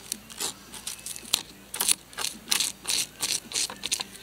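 A blade scraping the scales off a bluegill on a plastic cutting board: quick repeated scraping strokes, about three a second.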